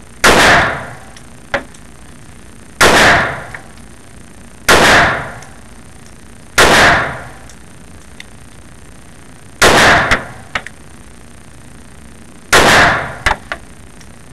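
Six shots from a Smith & Wesson BodyGuard .380 pocket pistol firing Remington 88-grain jacketed hollow points, spaced two to three seconds apart, each a sharp crack with a short ring after it. A few much fainter clicks follow some of the shots.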